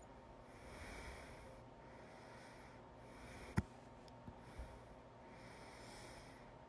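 A person breathing softly in and out, with one sudden, sharp hiccup about halfway through and two fainter clicks just after it.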